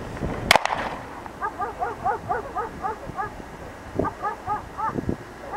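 A dog giving a rapid run of short, high yips, about five a second, pausing and then starting again near the end. A sharp click comes about half a second in.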